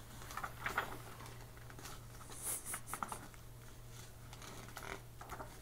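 Paper pages of a small instruction manual rustling and flicking as it is leafed through, in a handful of short, faint rustles. A low steady hum runs underneath.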